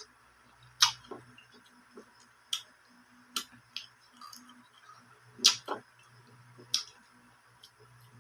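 A person eating, chewing close to the microphone: a scatter of sharp crunches and mouth clicks, about six in all, the loudest about five and a half seconds in.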